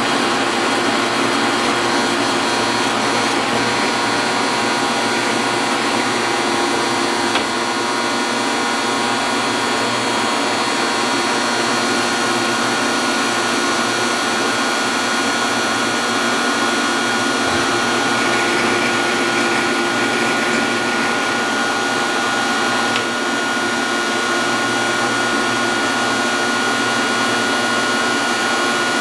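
Metal lathe running steadily during a thread-cutting pass, with a constant mechanical whine and a light click about seven seconds in.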